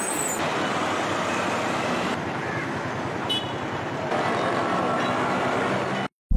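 Road traffic noise from vehicles passing on a street, changing at each of several cuts about every two seconds, then cutting off abruptly near the end.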